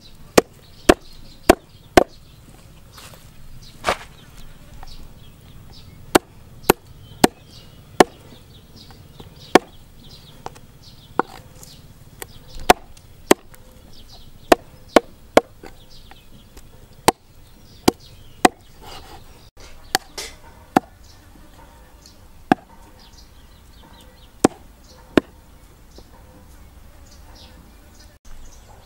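Cleaver chopping through a lizard carcass on a wooden chopping block: sharp single chops at an irregular pace, often two or three within a second, with pauses of a second or more between runs.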